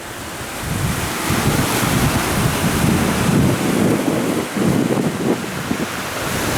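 Sea waves washing onto a shore, a steady hiss of surf, with wind buffeting the microphone in irregular low gusts.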